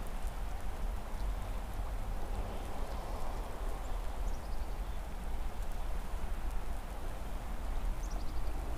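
Steady rush of flowing river water under a low rumble. Twice, a faint run of high chirps falling in pitch: about four seconds in and again near the end.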